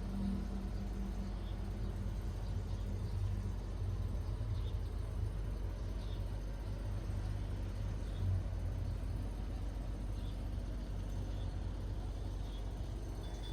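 Marbles rolling along a plastic marble-run track: a steady low rolling rumble with faint light clicks about once a second.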